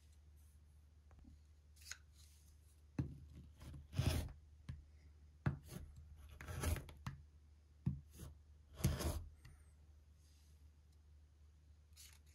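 A rotary cutter pressed down and rolled across a leather strap on a cutting mat, cutting it into short pieces in several short strokes between about a quarter and three-quarters of the way in.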